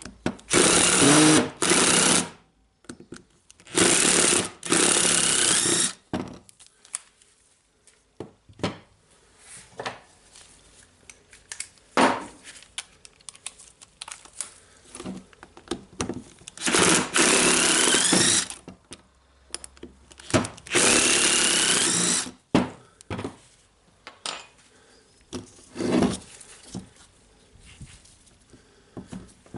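An impact driver runs in short bursts, each rising in pitch as the motor spins up, to back out the screws of an angle grinder's gear housing. There are several quick runs in the first few seconds and two longer ones later. Small clicks and knocks of parts being handled come between the runs.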